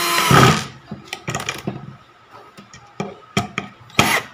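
Black & Decker GC1800 18 V cordless drill/driver driving a wood screw into a board: the motor runs for a moment, then stops with a short, loud burst of noise. Scattered light clicks and knocks follow as the driver is handled on the screw, with another short burst near the end.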